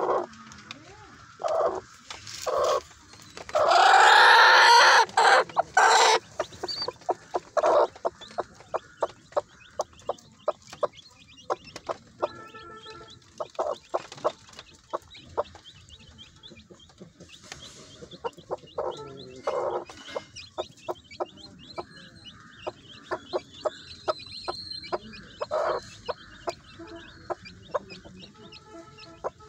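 Chicken calls: a broody hen giving many short clucks to her newly hatched chicks. A louder drawn-out call comes about four seconds in.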